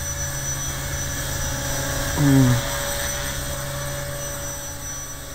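HobbyKing HK250 electric RC helicopter hovering, a steady whine from its Turnigy brushless motor and spinning rotors. About two seconds in there is a brief, louder sound that falls in pitch.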